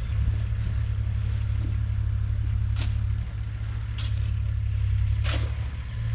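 A few footsteps crunching in deep snow, about a second or more apart, over a steady low rumble.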